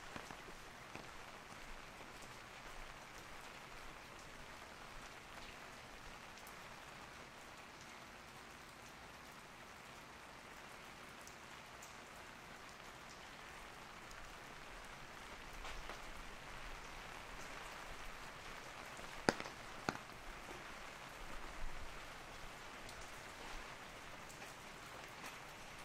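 Steady rain falling on an umbrella overhead, with scattered sharp drop hits; two louder hits come close together about three-quarters of the way through.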